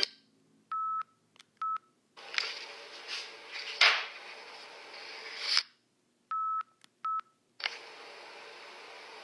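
Microcassette tape playback: two pairs of short electronic beeps at one pitch, each a longer beep then a shorter one, with stretches of tape hiss between them. A sharp click near four seconds in is the loudest sound, and the hiss runs on steadily near the end.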